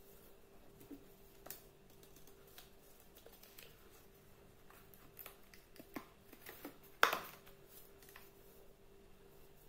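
Hands handling cardboard soap boxes: scattered light taps and rustles, with one sharp click about seven seconds in, over a faint steady hum.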